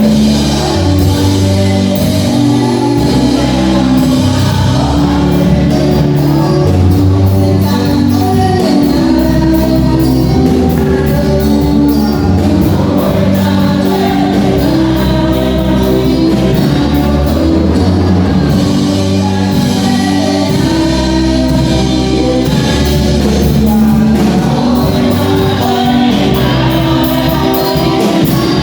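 Music with singing, in a gospel style with a steady bass line and percussion.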